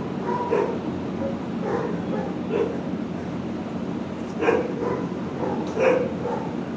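Shelter dogs barking in the surrounding kennels: about five short, irregularly spaced barks, the loudest about four and a half and six seconds in, over a steady background din.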